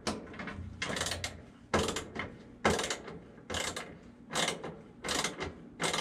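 A screw being backed out of the furnace's sheet-metal combustion blower housing with a hand driver, which makes a short mechanical stroke about once a second, seven in all.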